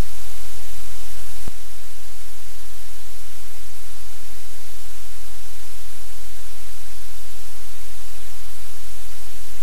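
Loud, steady static hiss over a low electrical hum, with a single click about a second and a half in, after which the hiss drops slightly in level.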